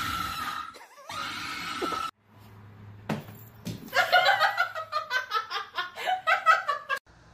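A person laughing hard in rapid bursts for about three seconds in the second half. Before it, a loud harsh sound with one steady pitch cuts off sharply about two seconds in.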